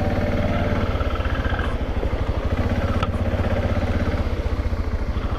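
BMW G650GS single-cylinder motorcycle engine running steadily at an even pitch, with a fast, even pulse from its firing.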